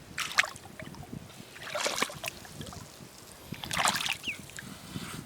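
Short scuffs and splashes in wet sand and shallow water, three of them about two seconds apart, over a low steady hiss.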